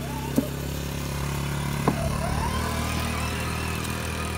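Small youth ATV's engine running steadily as the quad drives across grass, with two short sharp clicks, one just after the start and one about two seconds in.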